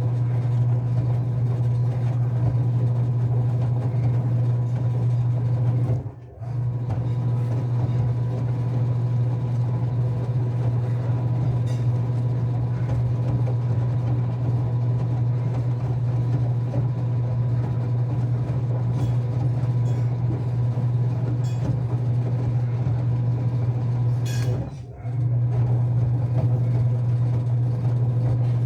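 Enxuta Euromatic washing machine's electric motor running with a steady low hum. The motor cuts out briefly twice, about six seconds in and again near the end, and starts again each time.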